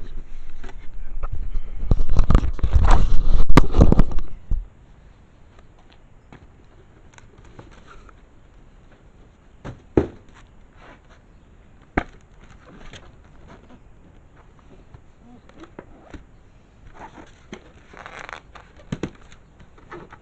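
Cardboard and plastic packaging handled and rustled close to the microphone for about four seconds, then quiet with two sharp clicks or taps a couple of seconds apart and a little more rustling near the end.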